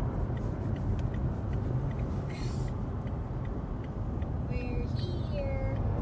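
Steady road and engine noise heard inside a Toyota Tacoma pickup's cab while it tows a travel trailer at highway speed.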